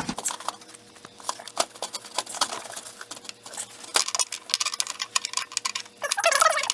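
Irregular small clicks, taps and scrapes of a new spin-on oil filter being handled and threaded onto the engine by hand, with a louder scraping stretch near the end.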